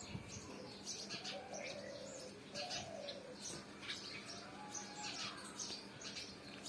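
House sparrows chirping: many short, sharp chirps in quick runs throughout, with a few lower, drawn-out sliding calls underneath.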